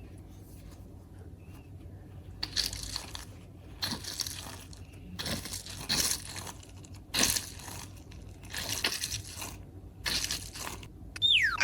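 Slime being squeezed and pressed by hand: about six short squishes, roughly one every second or so, starting a couple of seconds in.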